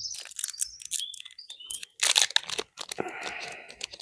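Foil Pokémon booster pack wrapper being handled and torn open: dense crinkling and crackling, with a longer tearing rasp about three seconds in.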